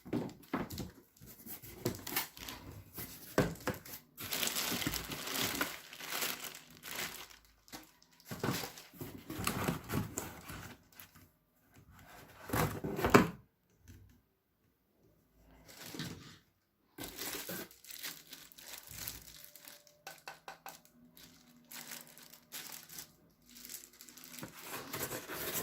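Plastic and cardboard packaging crinkling and tearing in irregular bursts as it is handled, with a few sharp knocks, the loudest about halfway through, and a short pause just after.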